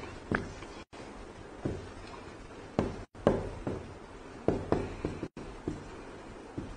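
Writing on a board: irregular taps and short strokes, about a dozen over a few seconds, over a faint hiss. The sound cuts out briefly three times.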